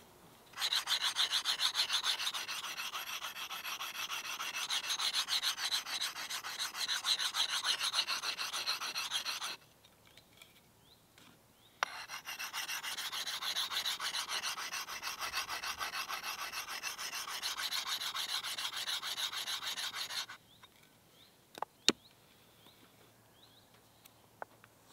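Hand-sharpening an axe: rapid, rhythmic rasping strokes of a sharpening tool on the steel edge, in two spells of about nine and eight seconds with a short pause between them. A couple of sharp clicks follow near the end.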